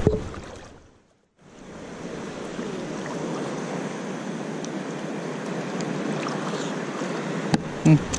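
Steady wash of shallow sea water lapping around a wader, with some wind, broken by a half-second drop to silence about a second in.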